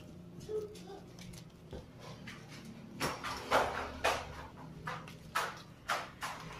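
Black vinyl sticker being peeled off its paper backing sheet, with several short rustles of vinyl and paper between about three and six seconds in.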